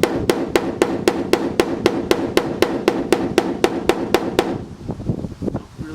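Rapid, light taps of a hammer's pointed end on the car body's 22-gauge sheet metal, about four a second, each with a short metallic ring, knocking down a high spot. The tapping stops about four and a half seconds in.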